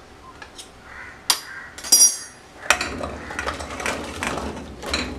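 Pieces of ash gourd and other cut vegetables dropped into an empty stainless steel pressure cooker: a few sharp clinks on the metal bottom in the first two seconds, one of them ringing, then from about three seconds in a longer clatter as a bowlful is tipped in.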